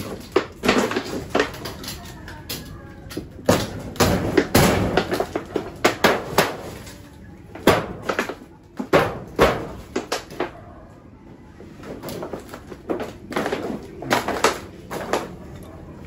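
Irregular knocks, bangs and clatters of wooden boards and corrugated metal being shifted and struck, with a quieter pause about two-thirds of the way through.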